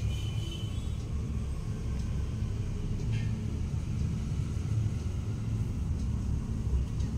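Steady low background rumble, with a faint brief higher sound about three seconds in.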